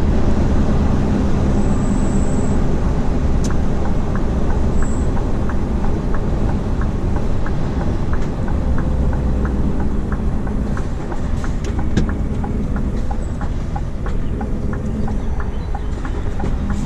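Scania R520's V8 diesel running at low speed, heard from inside the cab. From about five seconds in, the turn signal ticks steadily, about two ticks a second.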